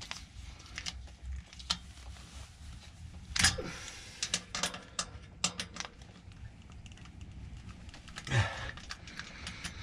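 Irregular small metallic clicks and taps of a tool working the pannier rack's mounting bolts at the bike's rear, as they are checked and tightened, with a louder clatter about three and a half seconds in.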